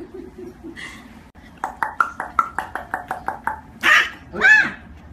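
A puppy yipping in a quick run of short, high-pitched yips, about six a second, followed by a single longer yelp that rises and falls in pitch.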